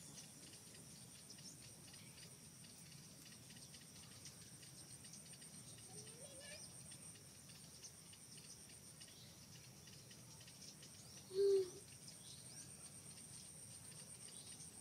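Steady, high-pitched trilling of insects in the forest canopy, with a faint short call about six seconds in and one short, loud, pitched call about eleven and a half seconds in.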